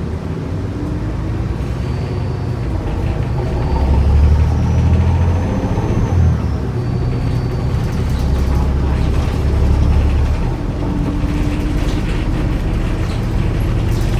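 Diesel engine and automatic transmission of a New Flyer D40LF transit bus heard from inside the cabin while the bus pulls away and accelerates, the engine note swelling and briefly dropping back at gear changes about six and ten seconds in. The uploader calls the bus's transmission bad.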